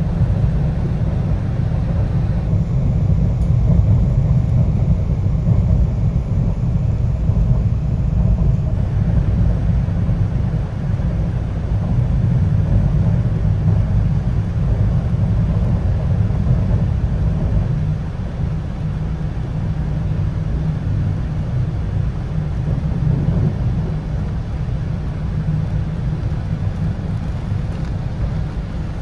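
Steady low rumble of an electric commuter train running along the track, heard from inside the passenger car.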